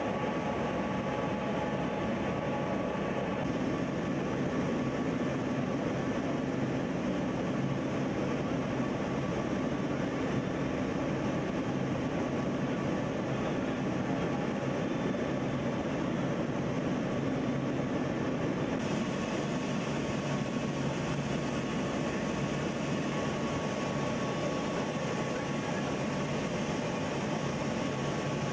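Cabin noise inside the cargo hold of a C-17 Globemaster III in flight: the steady engine and air noise of its four turbofans, with a few faint steady tones over it. The hiss becomes slightly brighter about two-thirds of the way through.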